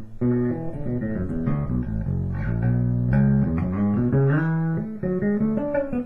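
Warmoth Jazz Bass played clean straight into a Music Man HD-130 amp and 2x12 cab: a bass line of plucked notes, some held, with a note sliding up about four seconds in. There is a little distortion, which is just how the amp sounds.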